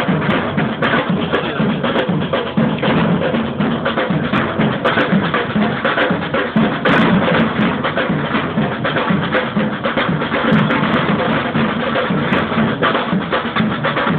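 Samba drum band playing a steady samba-reggae groove: large surdo bass drums beat a pulsing low rhythm under a dense patter of smaller drums.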